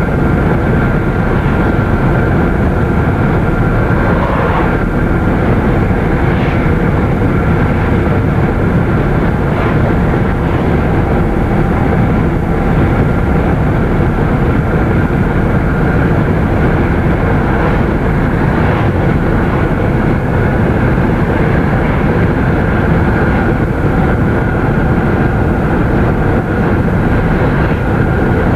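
Steady wind and road noise heard inside a car moving at road speed, a loud even rush with no change through the stretch.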